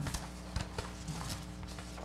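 A few light knocks and taps, about five in two seconds, over a steady low electrical hum in a meeting room.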